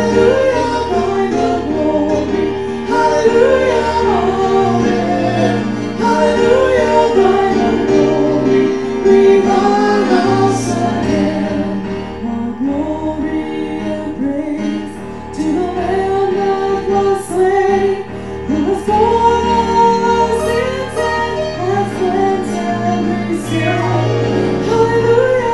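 Christian worship song: a woman sings the melody over steady instrumental backing.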